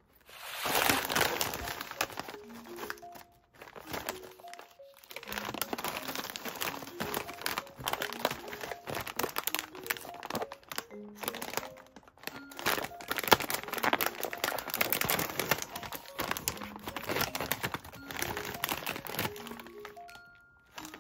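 Plastic snack bag crinkling and crackling as it is handled and opened, in a dense run of rustles broken by two short pauses. Soft background music with plinking notes plays underneath.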